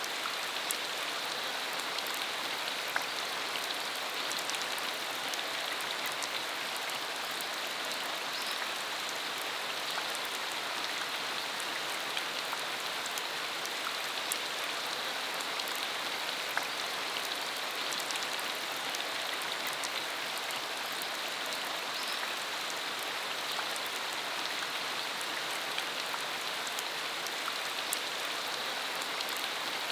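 Steady rain falling on a country dirt road: a constant hiss with many scattered individual drops ticking through it.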